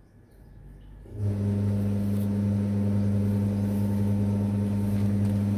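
A steady low electrical hum switches on about a second in and holds at one constant pitch.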